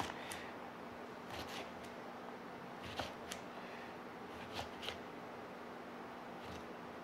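Knife slicing through half an onion onto a wooden cutting board: a handful of faint, crisp cuts spaced irregularly, over a faint steady hum.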